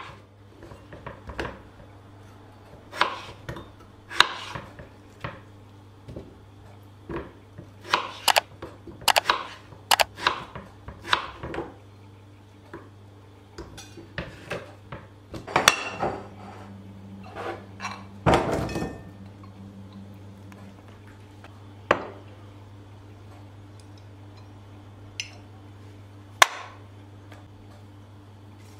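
Knife cutting onion and potato on a wooden cutting board, with irregular knocks of the blade on the board through most of the first two-thirds. Then a few sparse clinks of pieces against a bowl.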